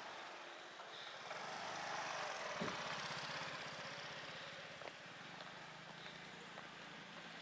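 A taxi driving past at low speed: engine and tyre noise swell to a peak two to three seconds in, then fade away.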